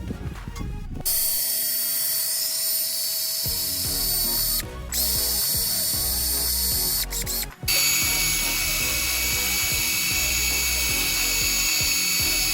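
A power tool's motor running steadily with a high whine, stopping briefly twice, about five and seven and a half seconds in.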